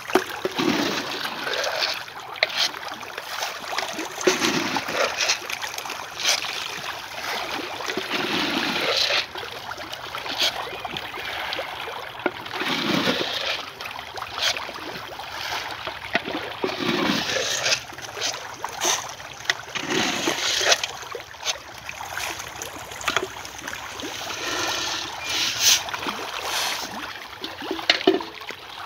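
A crowd of tilapia thrashing at the water's surface in a feeding frenzy, a continuous churning splash with many quick sharp splashes over it.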